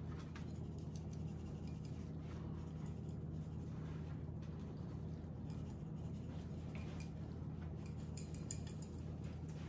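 Faint, scattered light clicks of a metal-lidded spice shaker being shaken over salmon fillets on a wire rack, over a low steady hum.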